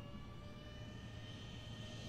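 Electric ducted fans of radio-controlled F/A-18 jet models flying overhead: a steady whine made of several held tones.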